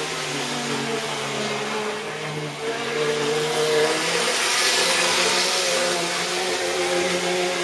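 Model train running on a layout: a steady electric hum with wavering pitch and the rolling noise of wheels on track, swelling as cars pass close by about four to six seconds in.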